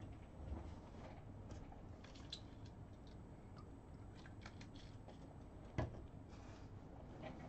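Faint noises of a person taking a drink: a few small clicks and mouth sounds over a low hum, with one sharp knock about six seconds in.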